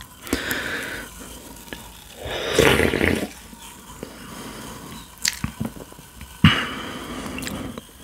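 Close-miked wet mouth and drinking sounds of carbonated cherry cola: sips and swallows with short fizzy hisses. The loudest comes about two and a half seconds in, and sharp clicks come near five and six and a half seconds in.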